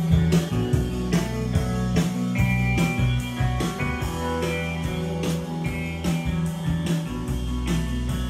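Music with guitar over a steady drum beat.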